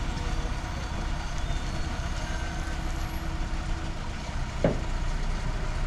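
Heavy truck's diesel engine running, a steady low rumble. A brief, sharper sound cuts in about four and a half seconds in.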